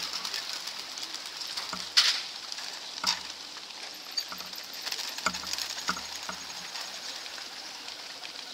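Racing pigeons being released from a transport trailer's crates, a steady fluttering of many wingbeats. Several sharp knocks from the crate doors come through it, the loudest about two seconds in.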